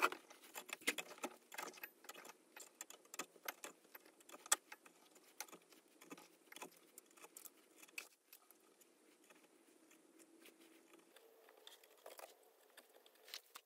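Steel drill bits clinking and tapping as they are set one by one into the holes of a 3D-printed holder on a wooden block. Many small faint clicks, coming thickly for the first half and thinning out after.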